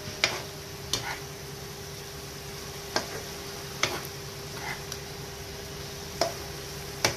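A spatula stirring whole small brinjals through masala in a non-stick frying pan. It knocks sharply against the pan about six times, over a steady sizzle of frying.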